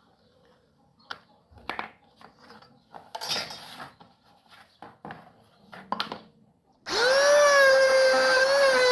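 A few light knocks and clicks of handling PVC pieces, then an electric power tool switches on near the end, spinning up quickly and running with a steady high whine.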